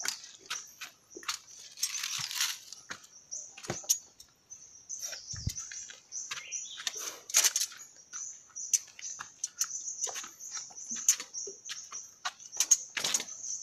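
Footsteps crunching over dry leaves and twigs on rock, in irregular short crackles, with a steady high-pitched drone in the background.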